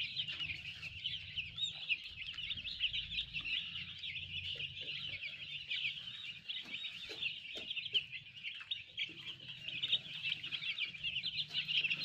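A large flock of young chicks peeping together: a dense, continuous chorus of many high, short cheeps overlapping.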